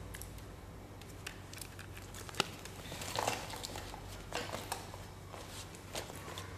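Quiet handling noises from hands working a small object: scattered small clicks and short rustles, the sharpest click about two and a half seconds in, over a faint steady low hum.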